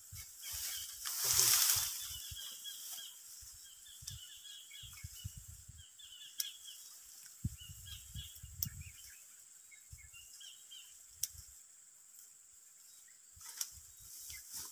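Dry hill-rice stalks rustling as the grain heads are cut by hand with a small finger knife (linggaman), loudest about a second in, with a few sharp clicks. Small birds chirp throughout, and there are low bumps on the microphone.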